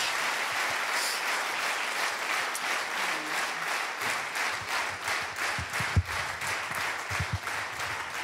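Large theatre audience applauding steadily, with a few low thumps about six and seven seconds in.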